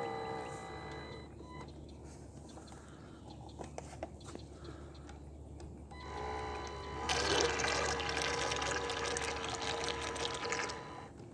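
Water sloshing and churning with the whine of a small electric RC motor; about seven seconds in the motor tone steadies and the water noise gets louder.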